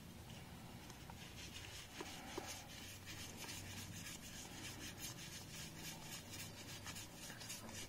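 Faint rubbing and sliding of playing cards as a deck is taken out of a plastic deck box and handled and fanned in the hands, with a couple of light clicks about two seconds in.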